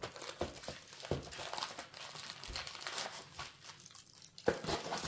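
Irregular crinkling and rustling of a rolled diamond painting canvas and its thin transparent release film as it is unrolled and smoothed flat by hand on a table, with a sharper crackle about four and a half seconds in.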